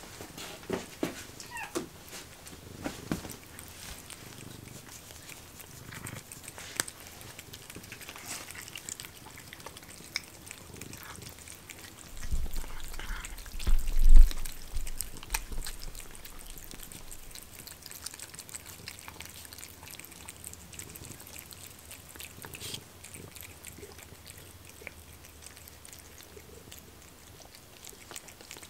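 Several cats eating raw rabbit nuggets topped with a creamy broth from paper plates, heard up close: a string of small clicks of chewing and lapping. A louder low bump comes about halfway through.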